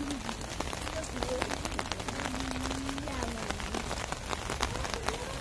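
Steady rain falling, with many separate drops striking close to the microphone.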